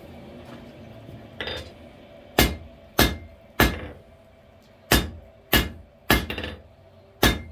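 Hand hammer striking a red-hot half-inch square mild-steel bar on an anvil, drawing it out to a blunt point. After a lighter knock about a second and a half in, seven ringing blows come little more than half a second apart: three, a short pause, three more, then one last blow.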